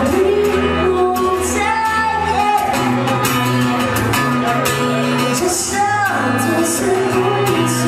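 A woman singing live with her own strummed acoustic guitar accompaniment.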